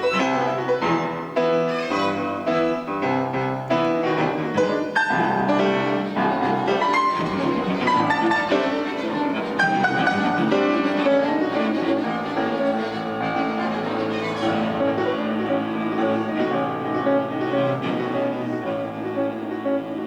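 Classical chamber music: piano with bowed strings such as cello and violin, with many short struck notes at first and longer held notes in the second half.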